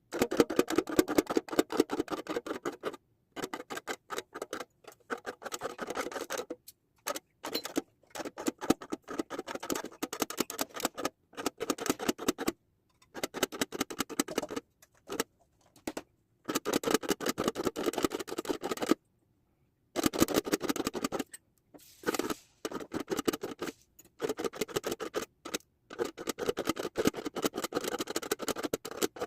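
Foil crinkling and scratching under a tracing tool as a drawing is traced on it: rapid crackly scratching in runs of one to three seconds, with short silent breaks between strokes.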